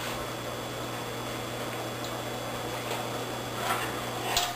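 Room tone: a steady hiss with a low hum, and a couple of faint, brief soft sounds near the end.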